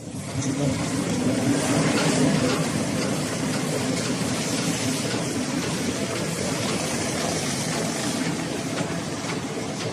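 G22 cardboard cutting machine starting up just after the start and then running steadily: a motor hum under a dense mechanical rattle.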